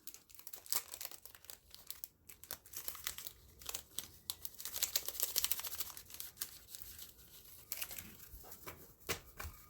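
Crinkling and rustling of a pack of thin patterned craft papers being opened and leafed through, with a steady run of irregular crackles that is busiest in the middle.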